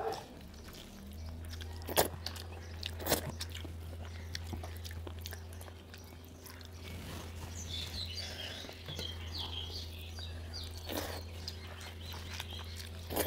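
Two people eating by hand: chewing roti and rice with saag, with a few sharp clicks of fingers and food against steel plates, over a steady low hum.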